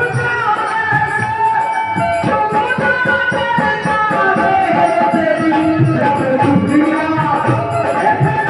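Live Indian devotional bhajan music: a steady hand-drum beat under a sustained, wavering melodic line.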